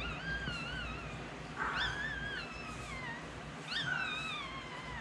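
Newborn chihuahua puppy crying: three high-pitched squeals, each about a second long, rising sharply and then sliding down in pitch.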